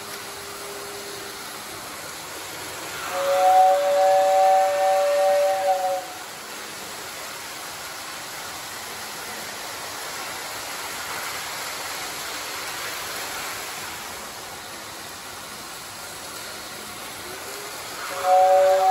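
Lionel toy train whistle blowing a steady chord of several notes for about three seconds, over the steady running noise of the toy trains on their track. A faint lower whistle tone fades out about a second and a half in, and the chord whistle sounds again near the end.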